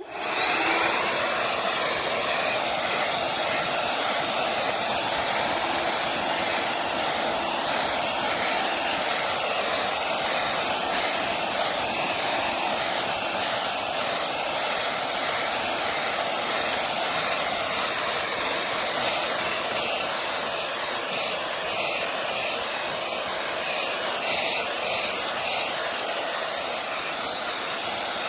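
HiKOKI RB18DC cordless 18 V blower switched on and running steadily: a loud rush of air with a high, steady motor whine. It comes up to full speed within about half a second, and the sound gets a little lower and more uneven near the end.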